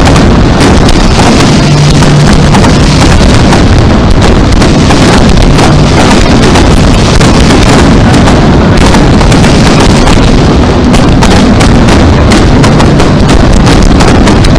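Aerial fireworks barrage, with many shells bursting at once: a dense, unbroken run of bangs and crackling, so loud that it overloads the microphone.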